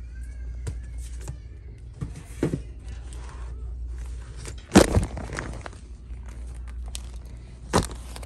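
Knocks, rustles and crinkles of store merchandise and packaging being handled, over a steady low hum. The loudest knock comes about five seconds in, with another sharp one near the end.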